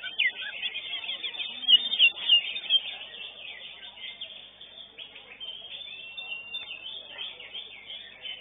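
Greater green leafbirds (cucak hijau) singing, a dense chorus of rapid overlapping chirps and short whistles, loudest in the first few seconds.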